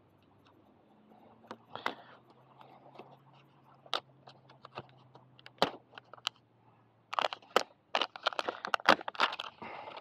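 Velcro hook-and-loop strip being handled on a plastic pad: scattered clicks and taps, then from about seven seconds in a run of crackling, tearing rips.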